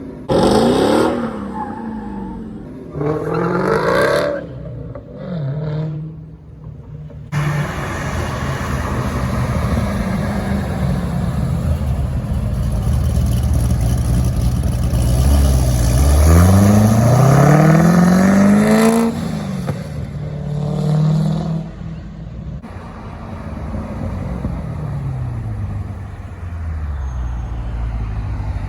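Loud muscle car engines revving and accelerating hard, heard as several short takes in a row. The engine pitch climbs and falls with each rev, and one long pull about halfway through rises steeply before cutting off.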